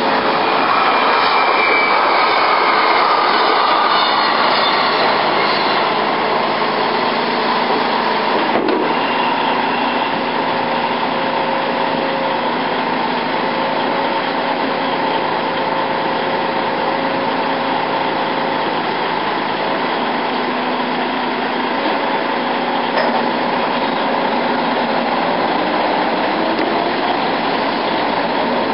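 Mobile crane's diesel engine and hydraulics running steadily under load while it lowers a heavy load onto a trailer. The engine's pitch eases down over the first few seconds, and there is a single clank about nine seconds in.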